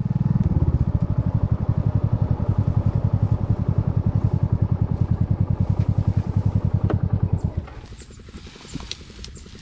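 Motorcycle engine running with a steady, rapid pulsing beat. About three-quarters of the way through it drops much quieter and keeps ticking over softly.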